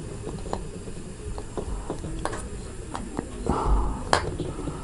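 Handling noise from two bullet tweeters held and turned in the hands: scattered light clicks and knocks from their metal bodies, a brief rub with a soft thump about three and a half seconds in, and a sharper click just after.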